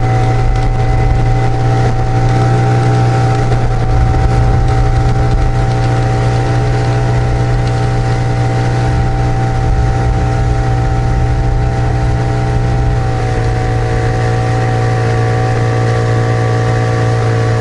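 Outboard motor running steadily at cruising speed, driving an inflatable boat across the river, with water rushing past the hull. Its pitch dips slightly about thirteen seconds in.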